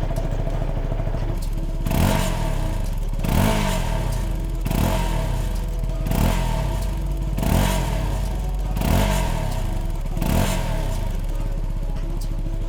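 CFMOTO NK300's single-cylinder engine with its stock exhaust, idling and blipped seven times at about a second and a half apart, each rev rising and dropping quickly back to idle.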